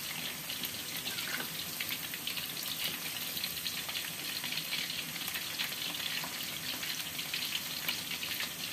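Chicken pieces deep-frying in hot oil in a wok: a steady crackling sizzle of bubbling oil, with many small pops.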